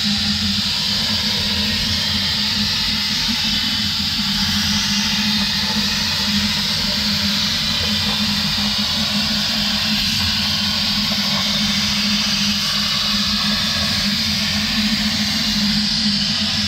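CNC plasma torch cutting 14-gauge sheet steel: a steady, loud hiss of the plasma arc with a low hum underneath.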